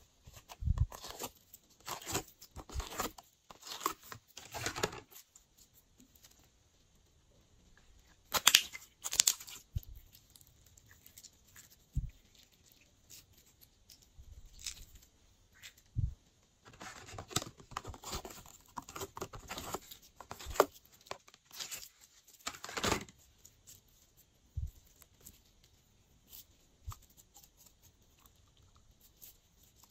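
Glossy slime being handled, stretched and squeezed by hand, giving bursts of sticky crackling and tearing sounds. The loudest pair comes about eight to nine seconds in, with a longer run of crackling in the second half and quieter stretches between.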